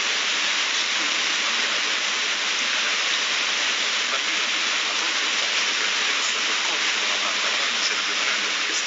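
A loud, steady hiss of recording noise, with a man's preaching voice faint and buried beneath it.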